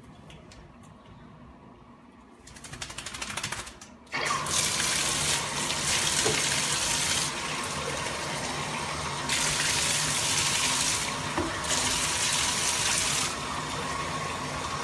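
A brief rapid rattle, then tap water comes on suddenly about four seconds in and keeps running, louder and softer in stretches: a puppy being rinsed under running water after shampooing.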